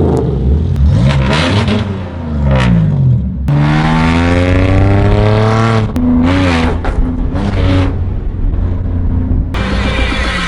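Holden Commodore SV6's 3.6-litre V6 through a de-catted, muffler-less exhaust being revved: the pitch falls off, then climbs in one long rev about three and a half seconds in, followed by a couple of shorter blips.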